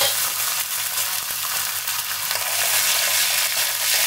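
Chana dal sizzling in hot oil with mustard seeds and curry leaves in a kadhai, a tadka tempering, with a spoon stirring through it near the end.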